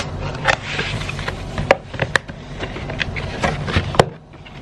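A camera's retail box and its packaging being opened and handled: scrapes and rubs with repeated sharp clicks and taps, the sharpest near the end.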